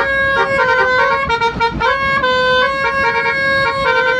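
Bus telolet horn, a multi-tone horn playing a melody of held notes that step up and down in pitch every half second or so.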